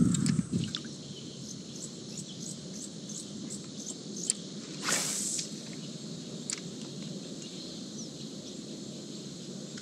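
Insects, crickets among them, keep up a steady high-pitched drone with short repeated ticks at about three a second. A single brief whoosh comes about five seconds in.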